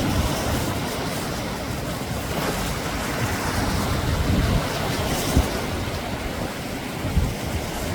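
Sea waves breaking and washing up a beach in a continuous surf wash, with a brief louder hiss of wash about five seconds in. Wind buffets the microphone with a low rumble throughout.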